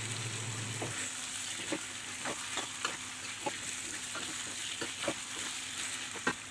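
Beef trimmings, chili paste and tomato sizzling in a wok while a spatula stirs them, scraping and clicking against the pan about once or twice a second; the sharpest click comes near the end.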